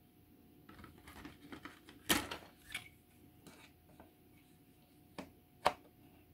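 Plastic model kit parts and tools being handled at a workbench: a second or so of rustling and scraping, then a series of sharp clicks and taps, the loudest about two seconds in and another sharp one near the end.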